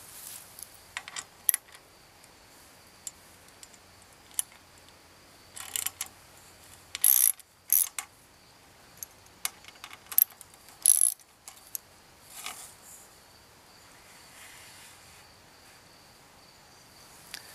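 Irregular metallic clicks and scrapes from a clamp being worked with a hand tool and the aluminum telescoping tube of a DX Engineering 8040VA-1 vertical antenna being slid out of its lower section to lengthen it, with the loudest bursts about seven, eight and eleven seconds in.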